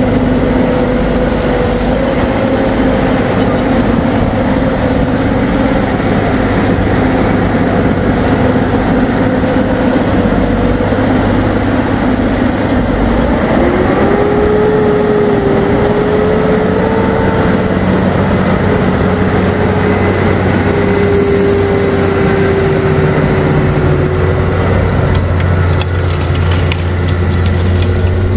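Deutz-Fahr 6155 RC Shift tractor's diesel engine running steadily; about halfway through its note rises and stays higher.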